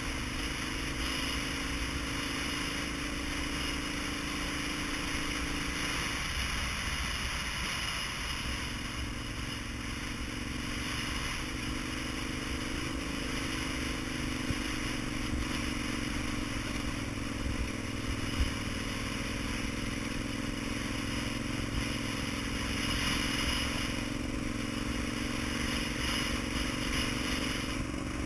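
Vehicle engine running on the move over a steady rushing noise. About six seconds in, the engine note drops away for a couple of seconds, then comes back and climbs in pitch.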